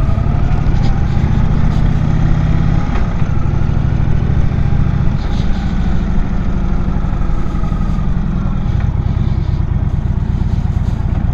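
Indian Chief Vintage motorcycle's V-twin engine running as the bike is ridden along. The engine note changes about three seconds in, again about five seconds in and near nine seconds.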